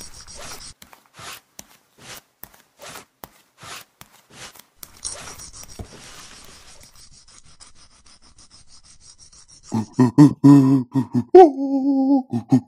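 Animated-film foley of a large cardboard box being pushed across a stone floor: a series of short scrapes and rubs with a longer scrape in the middle. About ten seconds in come loud straining grunts and a held groan from a caveman heaving at the box.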